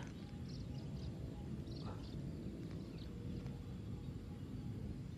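Quiet outdoor ambience: a steady low rumble with a few faint, short, high chirps scattered through it.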